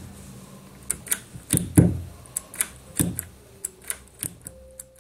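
Marantz 2218 stereo receiver's power push-button being worked, giving a string of sharp clicks and a couple of heavier clunks as the set switches on and off. No crackle comes with the switching now that a loose contact has been resoldered.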